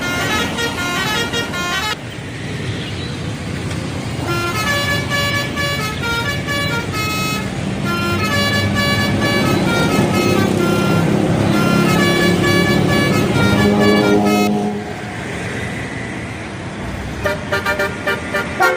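Indonesian bus telolet horn playing quick tunes of short stepped notes, in three runs with the longest in the middle, separated by stretches of bus and road noise.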